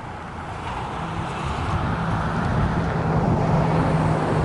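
A motor vehicle's engine hum and road noise growing steadily louder, as of a vehicle drawing near.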